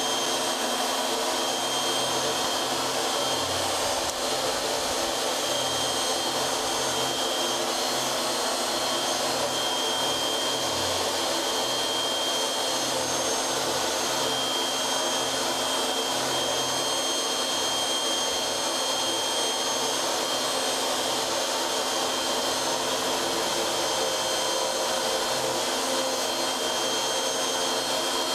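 CNC router spindle running steadily with a high whine while the cutter takes a skim cut, facing the top of the stock flat.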